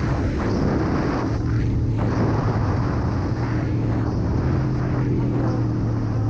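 Aprilia Tuono V4 1100's V4 engine running at a fairly steady speed while the bike is ridden, with the rush of wind mixed in.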